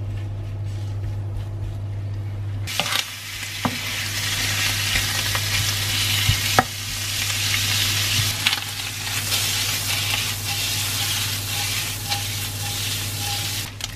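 Bacon frying in a dry non-stick pan without oil, sizzling steadily as it is stirred with a wooden spatula, with a few sharp knocks of the spatula on the pan. For the first few seconds only a steady low hum is heard, then the sizzle starts suddenly.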